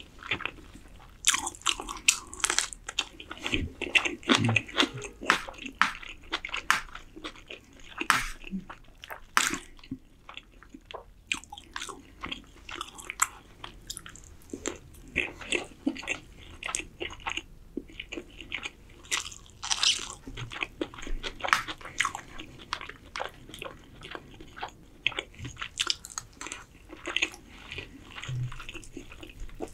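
Close-miked chewing and mouth sounds of a man eating spiced yellow rice and chicken from a spoon, with many irregular sharp, moist clicks.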